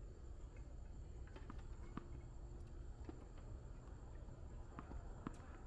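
Faint night ambience: crickets giving a steady high-pitched trill over a low rumble, with a few scattered light taps, the sharpest about five seconds in.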